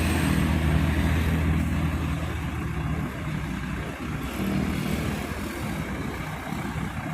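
Tour bus engine running as the bus passes, a low rumble that is loudest for the first two or three seconds and then fades away.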